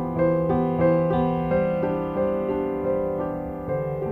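Piano music: a flowing line of notes, a few per second, over a held low note that shifts to a new pitch about a second and a half in and again near the end.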